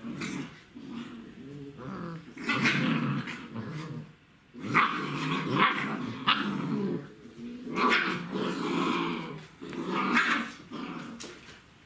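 Czechoslovakian wolfdog puppies growling, with some barks, in about five noisy bouts separated by short pauses.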